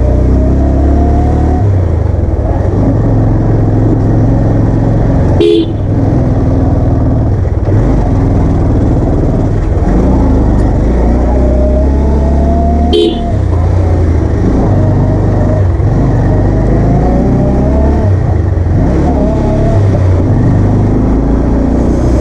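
Motorcycle engine running on the move, its pitch rising and falling as it speeds up and eases off. A horn gives two short toots, about five and a half and thirteen seconds in.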